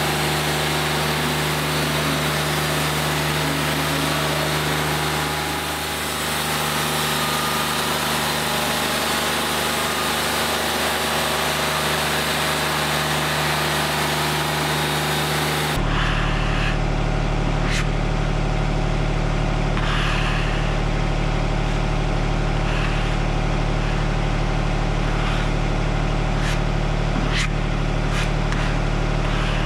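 Wood-Mizer LT40 Wide hydraulic portable sawmill's engine running steadily. About halfway through, the sound changes abruptly to a deeper, stronger engine hum with a few sharp clicks.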